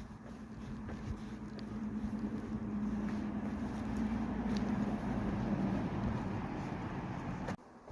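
A motor vehicle's steady engine hum, growing louder over the first few seconds, holding, then cutting off abruptly near the end.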